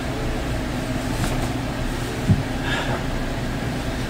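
Steady low mechanical hum, with one dull thump a little past halfway and a brief rustle just after it.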